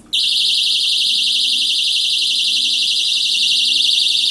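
A battery-powered water-level alarm's buzzer sounds with a loud, high-pitched, rapidly warbling tone that starts suddenly just after the start. It is set off because its copper-wire probe is in the tank water, which conducts and closes the circuit.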